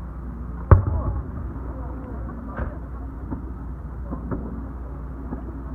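Aerial fireworks: one loud shell burst about a second in, followed by several fainter bangs and pops over the next few seconds.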